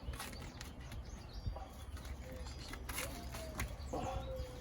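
Birds chirping briefly now and then over a steady low outdoor rumble, with a couple of short held call notes near the end.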